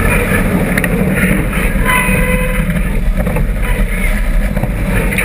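Off-road buggy's engine running hard under load in sand, heard from a camera mounted inside the roll cage.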